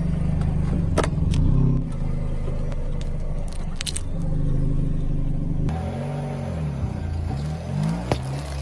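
Car engine running at low speed with a steady low hum. A few sharp cracks and crunches in the first half fit objects being crushed under the tyres. From about six seconds in, the engine note rises and falls several times.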